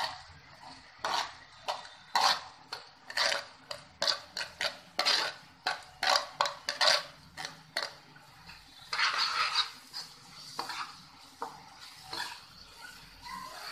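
A spoon scraping and knocking against a plastic plate and the pan as chopped nuts are pushed in, then a spatula stirring and scraping through moong dal halwa in a pan. Quick irregular scrapes and clicks through most of the first eight seconds, a longer scrape about nine seconds in, then sparser strokes.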